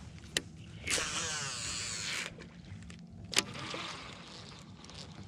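Baitcasting reel during a cast: the spool whirs as line pays out for about a second and a half. A sharp click follows as the reel is engaged, then a steady, quieter whir as the handle is cranked to retrieve the lure.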